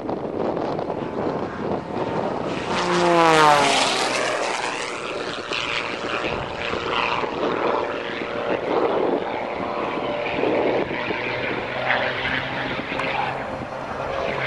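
Propeller airplane flying past: its engine note sweeps downward as it goes by, loudest about three seconds in, then runs on with its pitch shifting as it manoeuvres.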